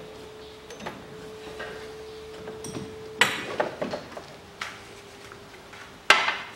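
Metallic clinks and knocks of hand work in a car's engine bay as the accessory drive belt is taken off, with the sharpest knocks about three seconds in and near the end. A steady faint hum runs underneath.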